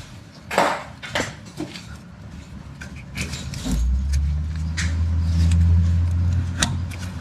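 Sharp clicks and metallic clinks of parts and tools being handled under the car. A little over halfway in, a steady low mechanical hum starts and runs on.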